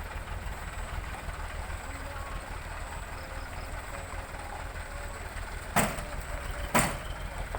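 Steady low rumble of a heavy vehicle engine running, with faint voices in the background. Near the end come two short, sharp noisy bursts about a second apart.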